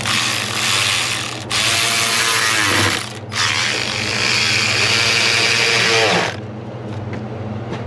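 Compressed air hissing through a venturi coolant vacuum-fill tool, pulling the truck's cooling system under vacuum. The hiss comes in three long spells with brief breaks about a second and a half and three seconds in, then stops about six seconds in.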